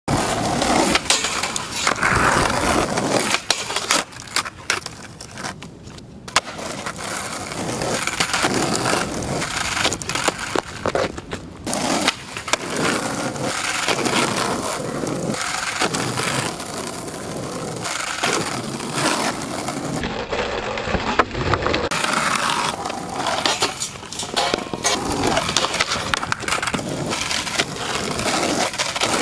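Skateboard wheels rolling on rough asphalt, with sharp clacks and slaps from time to time as the board and the skater's feet land after jumps.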